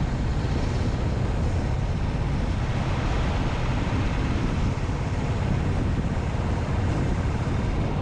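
Steady wind rush on the microphone of a camera riding on a moving bike, with low road rumble underneath.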